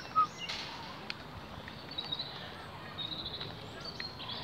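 Birds chirping, with short high chirps and a quick trill, over steady outdoor background noise. A short, sharp louder sound comes just after the start.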